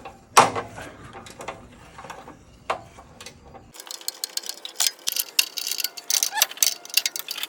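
A few separate metallic knocks and clinks of tools, then, from about halfway through, a ratchet wrench clicking quickly and continuously as it turns the oxygen sensor socket.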